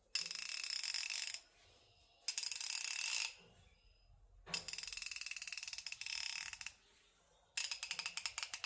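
Craftsman V-Series 1/2-inch drive ratchets being spun, pawls clicking rapidly in four runs of one to two seconds each with short pauses between; their heads have just been lubricated. One of them, the used ratchet, is slightly louder.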